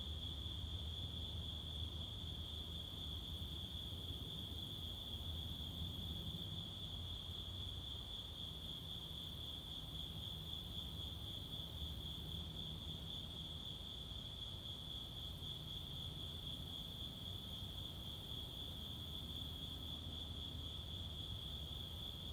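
A steady, unbroken, high-pitched chorus of night insects, with a low rumble underneath.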